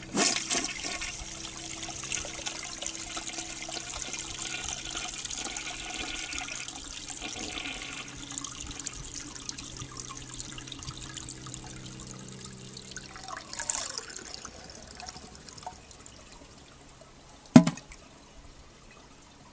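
A 1970 American Standard Cadet toilet flushing with its water supply shut off: tank water rushes out through the tilt-style flush valve and the rush fades away after about thirteen seconds. Near the end there is a single sharp knock.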